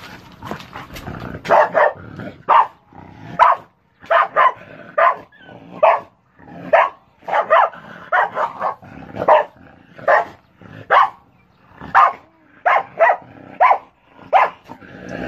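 Dog barking over and over in short, sharp barks, about two a second, excited at an animal caught in a wire-mesh cage trap.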